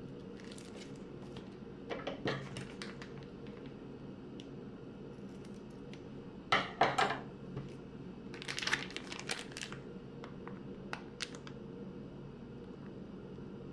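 Plastic Ziploc bag crinkling and rustling as it is handled and squeezed, in several short bursts. Scissors snip a corner off a filled bag about six or seven seconds in, the loudest moment.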